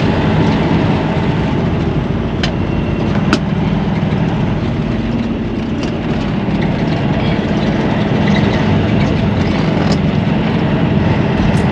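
Diesel semi-truck engine running steadily, heard from inside the cab, its leaking fuel filter freshly tightened. A couple of brief clicks about two and a half and three and a half seconds in.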